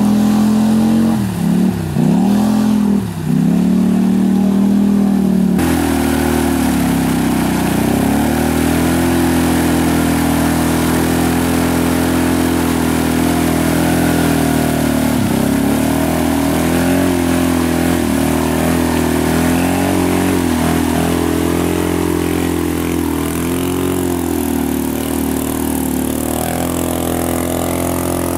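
ATV engines held at high revs with their wheels spinning while bogged in deep mud, the pitch staying nearly constant apart from a few brief drops in revs, then picking back up. There is an abrupt change in the sound a few seconds in, as a different machine takes over.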